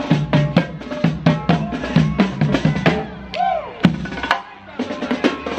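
Marching snare drums struck in a quick, steady cadence with music underneath. The drumming breaks off for under a second about four seconds in, then picks up again.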